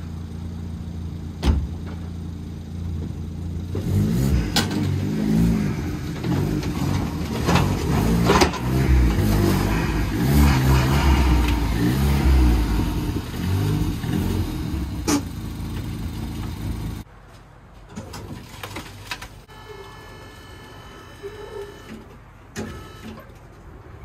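Ford Fiesta ST180 engine running: steady at idle at first, then revved up and down at low speed for over ten seconds as the car is moved. It shuts off about 17 seconds in, after which there are only quieter scattered clicks.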